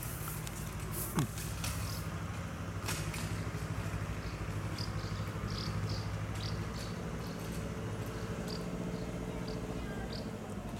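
A steady low mechanical hum, like a motor running, with a brief falling squeal about a second in and short high chirps repeating through the second half.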